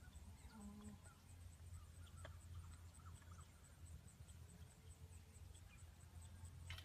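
Near silence: faint outdoor ambience, a low steady rumble with a few faint, scattered chirps.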